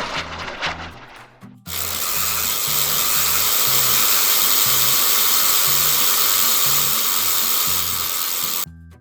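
Sound effect of a train passing: a loud, steady rattling rush that starts suddenly about two seconds in and cuts off abruptly near the end, over background music with a low bass line.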